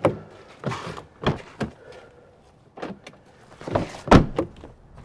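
Rear side door of a Jeep Wrangler JL Unlimited being unlatched and swung open: a string of sharp clicks and clunks from the latch and door, the loudest a little after four seconds in.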